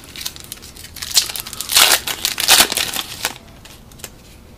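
Crinkling and rustling of a trading-card pack wrapper and cards being handled, loudest between about one and three seconds in.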